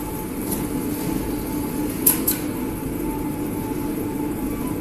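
Steady hum and rumble of an automatic feed-bagging machine line running. About two seconds in come two short, sharp hisses close together.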